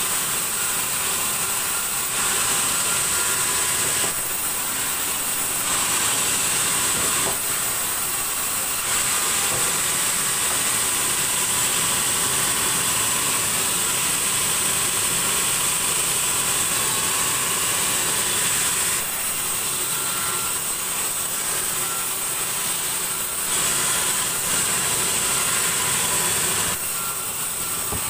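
Large sawmill band saw running and cutting lengthwise through a big log: a steady high whine over a hiss of sawing, its loudness rising and falling in stretches of several seconds as the cut goes on.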